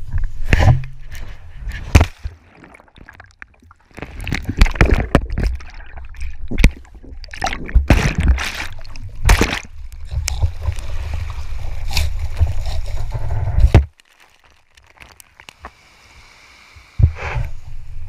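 An action camera fixed to a driftwood stick is jostled and dragged through sand and shallow surf. Wind buffets the microphone and the mount knocks repeatedly, while seawater sloshes and splashes over the camera. The sound drops abruptly to quiet about two thirds of the way through, then the rumble and knocks come back near the end.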